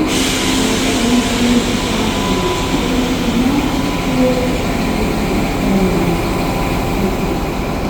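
NSW TrainLink XPT diesel train running steadily at the platform.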